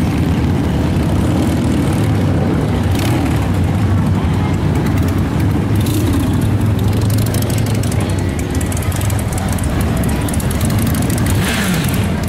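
Motorcycle engines rumbling steadily as bikes ride past along the street, a continuous low, heavy drone.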